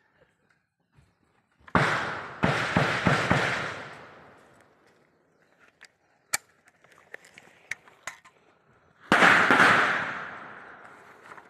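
Rifle gunfire: one shot about two seconds in, then a quick burst of several shots, each echoing out. Scattered fainter single shots follow, and near the end comes another loud report with a long echo.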